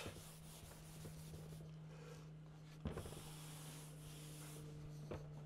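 Faint chalkboard sounds: a felt eraser wiping the board, then chalk writing, with a light tap about three seconds in. A steady low hum runs underneath.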